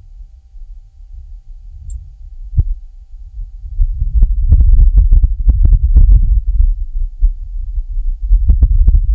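Martian wind recorded by the Perseverance rover's microphone: a low, gusting rumble buffeting the mic, swelling about four seconds in and again near the end, with crackling clicks at the gust peaks.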